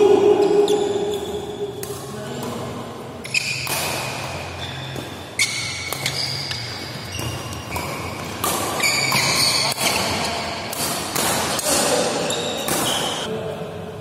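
Badminton doubles rally in a large indoor hall: repeated sharp racket strikes on the shuttlecock, mixed with short high squeaks of players' shoes on the court floor.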